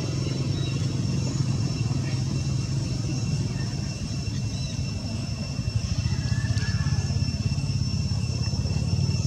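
Steady low engine rumble with a rapid pulse, under thin steady high-pitched tones.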